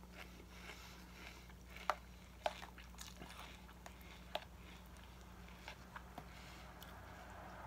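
Faint chewing of a mouthful of crunchy cereal, with a few small sharp clicks of the metal spoon, over a low steady hum.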